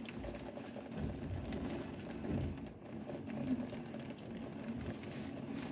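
Faint, muffled street noise in a heavy downpour, heard through a closed window: a city bus driving through the flooded street.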